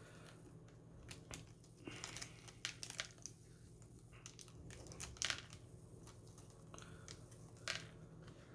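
A small plastic parts bag crinkling as it is handled and opened, with a few light clicks as tiny screws drop onto a cardboard work mat. The sounds are faint and come in scattered, irregular bursts.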